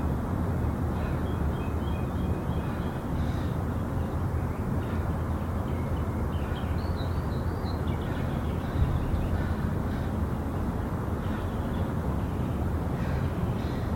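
Steady low outdoor rumble with faint bird calls: short chirps about a second in, and a run of rising-and-falling calls about halfway through.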